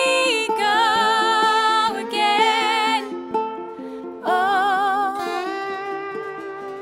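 Acoustic band music: a ukulele plucks a steady accompaniment under a slow melody with wide vibrato. The melody breaks off about three seconds in and comes back about a second later.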